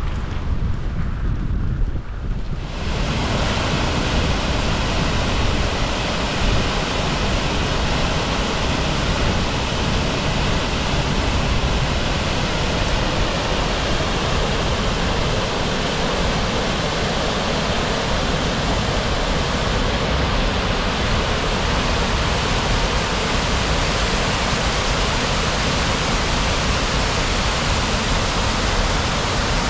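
Muddy floodwater rushing and pouring over a broken concrete ledge: a loud, steady rush of water that sets in about three seconds in. Before that, wind on the microphone.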